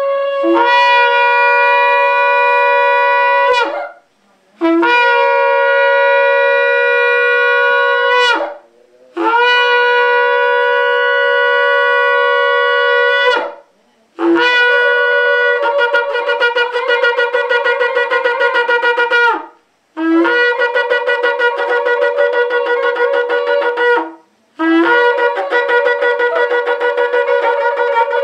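Two shofars sounded in long blasts: six held notes of about four seconds each with short breaks between them. The first three are steady, and in the last three the tone wavers rapidly.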